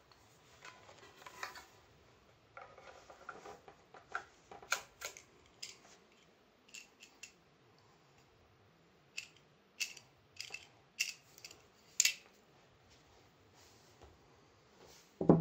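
Small clicks, taps and rubbing from hands handling turntable parts and a screwdriver while the tonearm is dismantled. The sharpest clicks come in a cluster in the second half, and a louder knock sounds at the very end.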